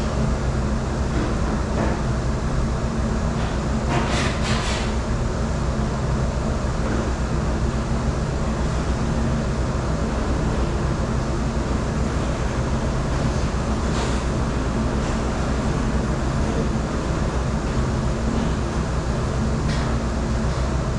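Steady mechanical hum of commercial dish-room machinery running, with a few brief clatters, the loudest about four seconds in.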